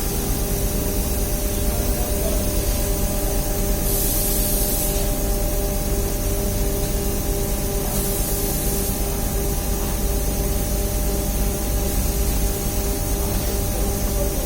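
Steady running machinery: a constant low rumble and hum under an even hiss, with two brief high hisses about four and eight seconds in.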